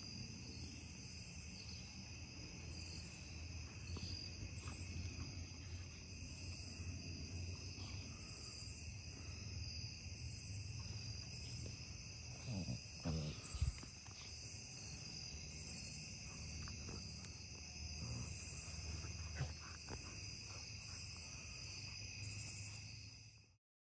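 Evening chorus of crickets and other insects: a steady high trilling with a higher pulsing call repeating a little more than once a second, over a low hum. A few soft thuds come about halfway through, and the sound cuts off abruptly just before the end.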